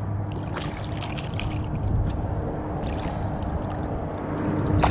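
Water splashing as a hooked speckled trout is drawn to the surface and reached for by hand, over a low steady rumble. Short splashes come about a second in and around three seconds, with a sharper one near the end.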